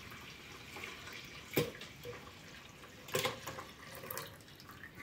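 Milk and yogurt-culture mixture pouring from a metal pot into a plastic tub, a faint liquid splashing that ends in a thin trickle. A few light knocks sound about one and a half, three and four seconds in.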